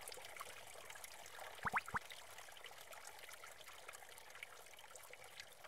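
Faint trickling-water ambience with scattered tiny ticks. About two seconds in come two short rising chirps close together.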